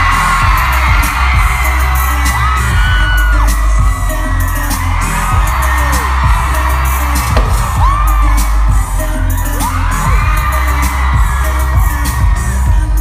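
Rock drum kit played in a live drum solo, loud and steady with a heavy low end and many cymbal and drum hits, with fans screaming over it.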